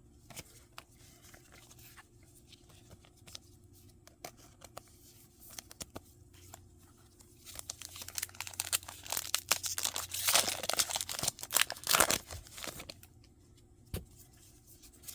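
Light handling clicks, then from about halfway through a few seconds of crinkling and tearing as a foil Pokémon booster pack wrapper is torn open.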